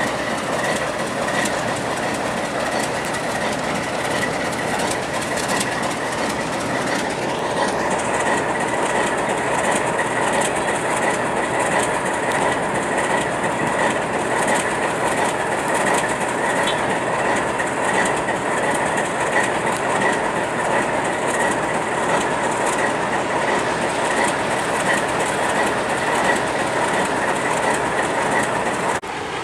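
A pair of ALCO RS3 diesel locomotives standing with their engines idling, a loud, steady diesel running sound.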